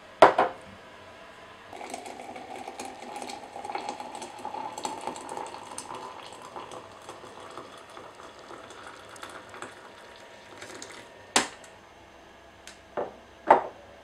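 Water poured from a kettle into a glass French press of ground coffee, the pitch of the pour rising slowly as the press fills. A sharp knock comes just before the pour, and near the end a knock and two quick clinks of crockery set down on the counter.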